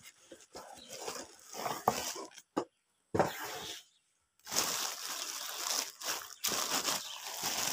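Clear plastic wrapping crinkling and rustling as plastic-wrapped boots are handled, in irregular crackly bursts that grow denser in the second half, broken by two short complete dropouts midway.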